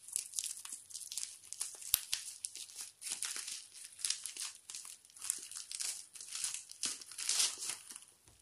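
Clear plastic packaging crinkling and rustling in irregular bursts as it is handled and pulled off a phone box, with a sharp click about two seconds in.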